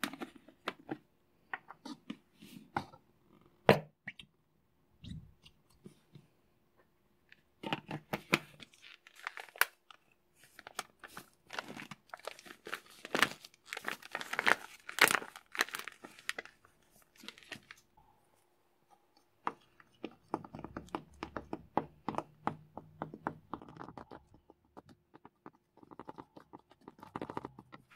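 A few scattered clicks and knocks, then a plastic bag of cornstarch crinkling as the powder is poured into a plastic bowl. About twenty seconds in, a plastic spatula starts scraping and stirring the cornstarch mixture in the bowl with quick repeated strokes.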